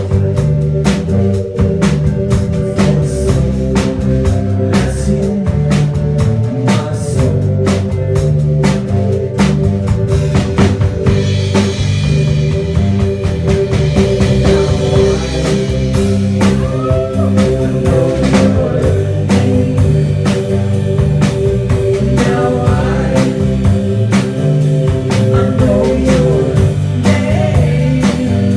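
A rock band playing live, loud and steady: drum kit keeping a regular beat under a moving bass line, electric guitar and sustained keyboard chords.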